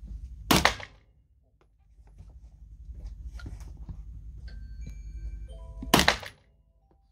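Two handgun shots fired at an indoor range, about five and a half seconds apart, each a sharp loud crack with a short echo. After each shot the sound drops briefly to near silence.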